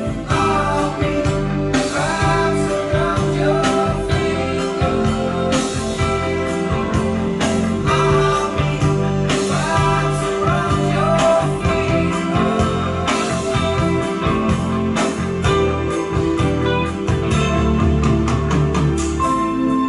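A song with a singing voice over a steady bass line, played loud through a Sansui BA-2000 power amplifier fed by a Nakamichi 1000P DAC and heard from the speakers in the room. The sound is loud enough to distort the camera's recording.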